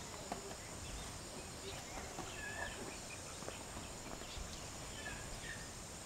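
Footsteps on a rough cobblestone path, a few sharp steps scattered through, over birds chirping now and then and a steady high insect drone.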